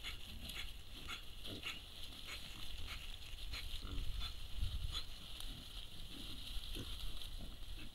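Wild boars grunting as they forage, with a run of short clicks a little under twice a second over a steady high hiss.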